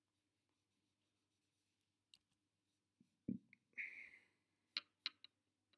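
Near silence with scattered faint computer mouse clicks. A dull thump comes about three seconds in, followed by a short soft rush of noise and a few more clicks near the end.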